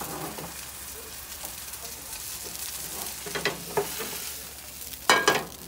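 Seafood pajeon sizzling in oil in a nonstick frying pan on a gas burner, a steady hiss. Brief clatters about three seconds in, and a loud knock near the end as the pan is handled while the pancake is slid onto a plate.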